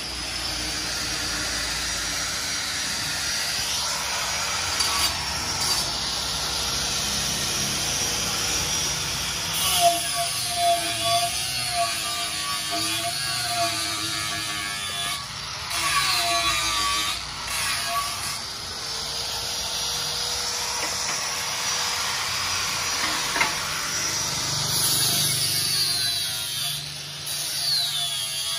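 Handheld angle grinder with a sanding disc running continuously against an alloy wheel rim, a steady abrasive rasp with a whine that wavers in pitch as the tool is worked.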